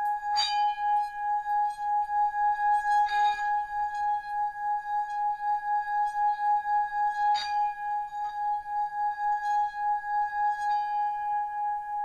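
Bronze Tibetan Buddhist hand bell ringing with one sustained, pulsing tone and a higher overtone. It is struck afresh three times, each strike adding a bright metallic clang, with a couple of lighter taps near the end.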